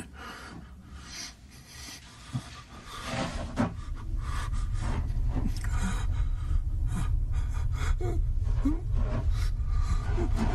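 A low, ominous rumbling drone of horror film sound design that swells in about four seconds in and holds, over scattered rubbing and scraping sounds. A man's short gasping breaths come through in the second half.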